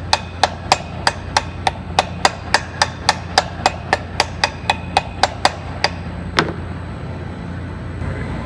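Hammer tapping around the casing of a Waukesha C Series sanitary pump, a quick even run of about three ringing strikes a second that stops about six seconds in. The tapping seats the casing so the clamp pulls it tight and even all the way around.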